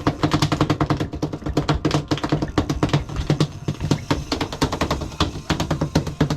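A freshly landed tuna drumming its tail against the boat's deck: a fast, irregular run of sharp taps, several a second, over the steady low hum of the boat's engine.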